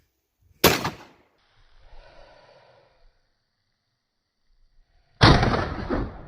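Two gunshots from .410 slug loads, about four and a half seconds apart. The second is louder, with a longer ringing tail.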